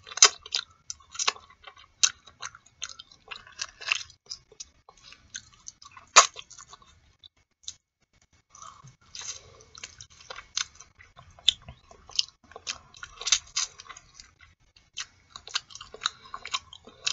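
Close-up mouth sounds of eating boiled artichoke leaves: irregular wet smacks, sucking and chewing as the soft flesh is pulled off each leaf with the teeth, with a short pause a little past the middle.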